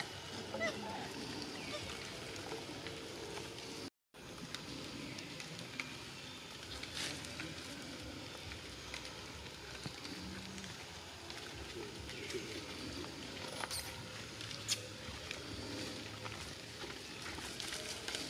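Forest ambience: a steady outdoor hiss with rustling and scattered small clicks as macaques move among the leaves, cutting out completely for a moment about four seconds in.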